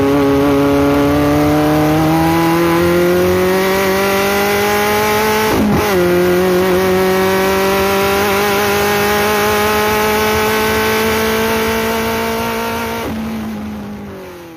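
Four-cylinder race car engine at high revs, heard on board. Its pitch climbs slowly, drops briefly in revs about six seconds in and recovers, then holds steady before fading out near the end.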